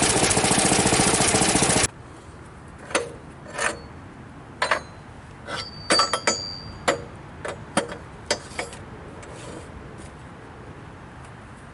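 Frontier OS23 portable band sawmill running loudly with its engine going, cutting off abruptly about two seconds in. Then a scattering of sharp knocks and clacks for several seconds, one with a brief high metallic ring.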